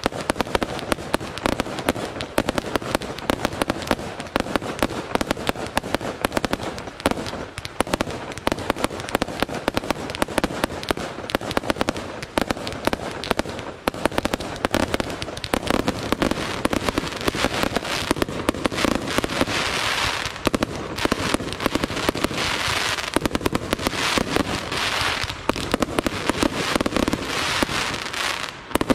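Aerial fireworks display: a rapid, continuous string of shell bursts and bangs, several a second. A denser high hiss of crackling stars builds over the last third.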